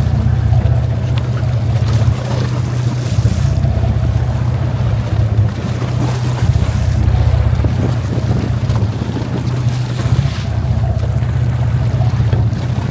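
Sportfishing boat's engine running steadily with a low drone, with wind noise on the microphone.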